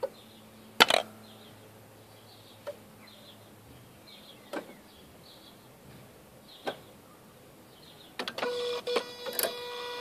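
Mazda RX-8 with the engine switched off, still making sharp single clicks about every two seconds. Near the end an electric buzzing hum with rapid clicking starts up. The owner doesn't know what it is and guesses an electric pump or valves.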